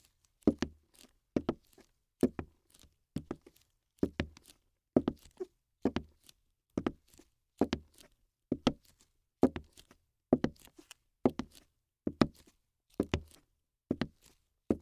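A steady series of short thuds, about two a second, at a walking pace.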